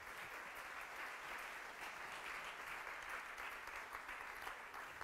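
An audience applauding: many hands clapping in a steady, even spread.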